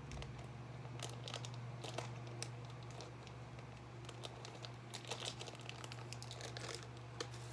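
Small plastic zip bag of soft clay crinkling and crackling as hands handle it and pull it open, in irregular crackles over a steady low hum.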